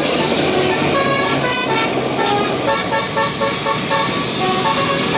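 Bus telolet horn playing a quick tune of short notes that jump between different pitches, starting about a second in, over steady road noise.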